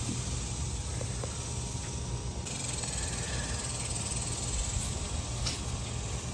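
Insects buzzing outdoors: a high, shrill, even drone that starts suddenly about two and a half seconds in and holds steady, over a steady low rumble.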